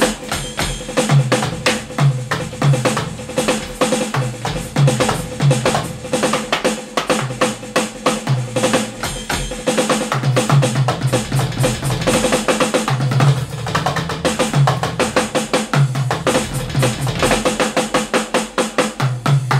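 Yamaha DTX Explorer electronic drum kit, with soft hi-hat, snare and tom pads, played through a powered monitor: a fast, steady groove of drum hits.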